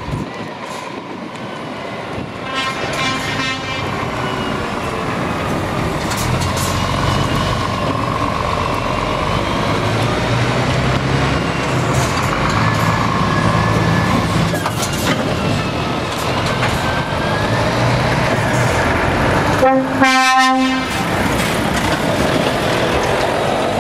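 Scania tractor unit pulling out and driving past, its diesel engine running under load and growing louder as it comes close. A short, faint horn toot sounds a few seconds in, and a loud air-horn blast about twenty seconds in.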